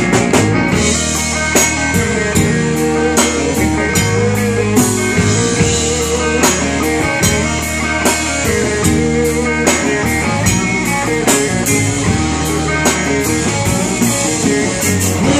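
Live band playing an instrumental stretch: two electric guitars over a drum kit keeping a steady beat.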